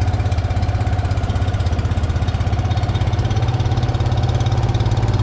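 A small boat's outboard motor running steadily under way, with a rapid even pulsing drone that rises slightly in pitch over the last couple of seconds.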